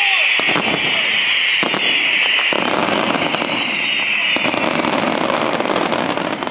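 Fireworks going off in a rapid crackle of sharp pops from about half a second in, thickening into a dense continuous crackle from about two and a half seconds. A steady high hiss runs under it and fades out after about four seconds.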